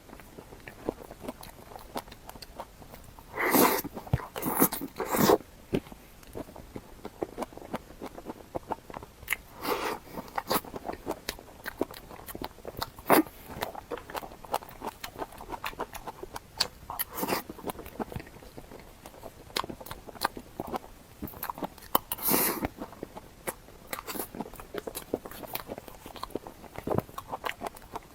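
Close-miked eating: a person biting and chewing food, with many small wet mouth clicks and a handful of louder crunchy bites, the biggest about three to five seconds in and again around 22 seconds.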